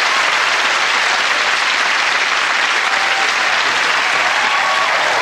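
Studio audience applauding, a dense steady clapping at full strength throughout.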